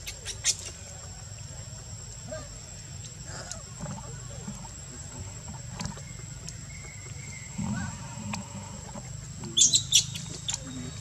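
Baby macaque giving short, shrill squeaks, loudest in a cluster near the end, as its mother handles it. Scattered small rustles sound under it, and a thin steady high tone runs in the background.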